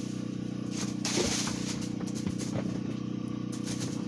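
Rustling and scraping against the phone as a kitten on the lap climbs and paws at it, with a few light clicks, loudest about a second in. A steady low hum runs underneath.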